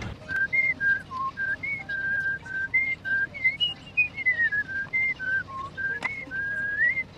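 Someone whistling a tune in clear single notes that step up and down, with a short sliding fall in pitch about four seconds in.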